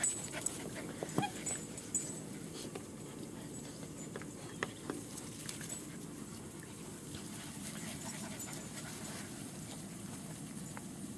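Seven-week-old German Shepherd puppies panting as they play, with a few short sharp sounds in the first two seconds and once more about four and a half seconds in.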